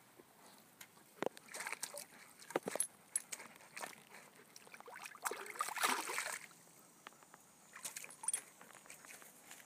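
A dog splashing and sloshing in shallow pond water as it pokes its muzzle in, with scattered small splashes and drips and one longer, louder slosh just past the middle.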